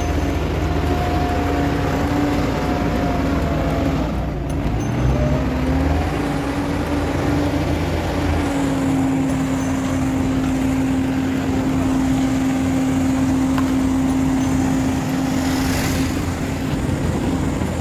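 Roadside traffic: a steady engine drone over a low rumble, with a small Suzuki hatchback car driving past about sixteen seconds in.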